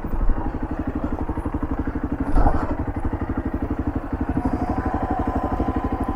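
Motorcycle engine running at low revs with a steady, even pulse as the bike rolls slowly over a rough dirt road, with a brief clatter about two and a half seconds in.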